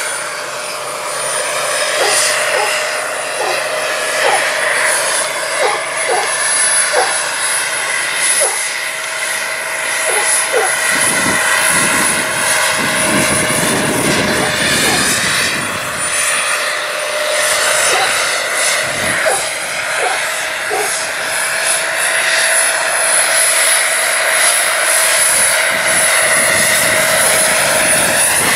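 Turbine-powered giant RC Bell 412 scale model helicopter in flight: the small gas turbine's steady high whine and a lower steady tone over the rotor noise, which sweeps as the helicopter passes.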